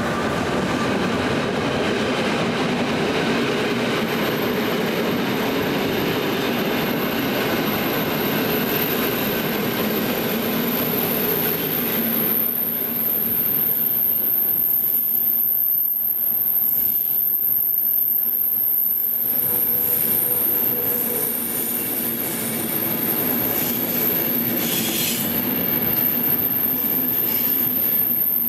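Intercity passenger train's coaches rolling past at close range: a steady rush and rumble of steel wheels on the rails, with a thin high whine over it and brief faint squeals in the second half.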